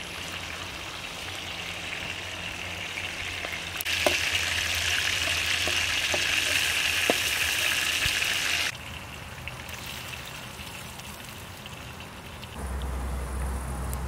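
Food sizzling and frying in hot oil in a pan, with a few light clicks. The sizzle is louder for about five seconds in the middle.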